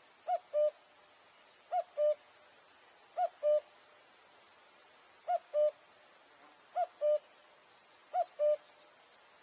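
Common cuckoo calling its two-note "cu-ckoo": a higher note falling to a lower one, repeated about every one and a half seconds.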